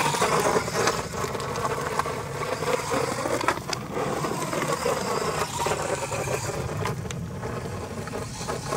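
Brushed 550 motor of a 1/14 RC monster truck whining up and down with the throttle as it drives over loose gravel, tyres crunching, with a couple of sharp knocks along the way.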